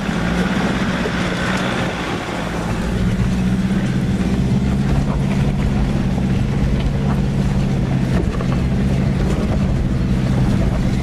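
Nissan Patrol's diesel engine pulling steadily under load in low-range four-wheel drive up a steep, rocky dirt climb, a little louder about three seconds in, with stones clicking under the tyres.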